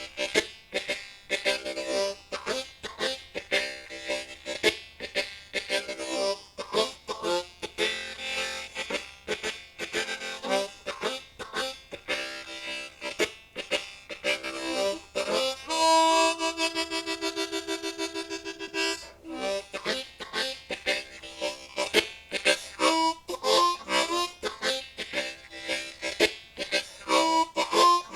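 Low F Hohner Marine Band Crossover diatonic harmonica played solo in second position: a 12-bar blues shuffle of rhythmic, chordal pulses, with a held chord that wavers rapidly about 16 seconds in.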